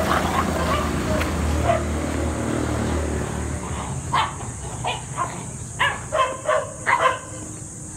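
Two young dogs play-fighting, one giving a quick run of short, high yapping barks, several a second, from about four seconds in. A low rumble fills the first few seconds.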